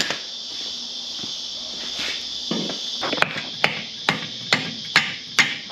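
Dead blow hammer tapping suspension bushes into a leaf spring's eye: a single knock at the start, then a run of about six evenly spaced blows, a little over two a second, in the second half. A steady high chirring of insects carries on underneath.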